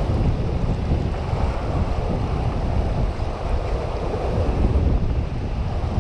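Wind buffeting the microphone over the steady rush of turbulent tailwater pouring from a dam's running generators, a dense, unbroken low rumble with no distinct events.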